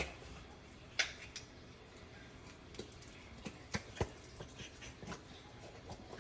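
Scattered light clicks and knocks of kitchen containers and utensils being handled while mixing a condiment batter in a pot, the loudest about a second in and two more close together past the middle.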